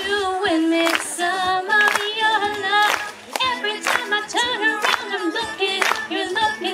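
A female solo singer singing a melody into a microphone, her voice bending and wavering in pitch, over a sharp beat about once a second.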